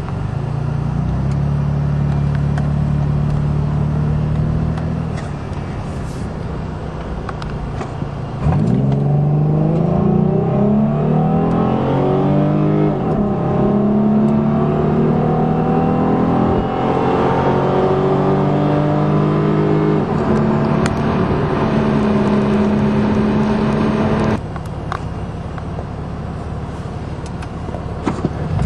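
In-cabin sound of a 1998 Dodge Avenger's 2.5-litre V6 in a full-throttle run. About eight seconds in it gets suddenly louder and the engine note climbs, dropping back at each upshift and climbing again. It holds steady for a few seconds, then falls away as the throttle is lifted near the end.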